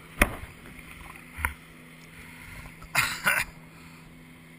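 Water slapping and splashing close to the microphone: a sharp knock about a quarter second in, a smaller one about a second and a half in, and a brief splash about three seconds in. Under it runs the steady low hum of a boat engine.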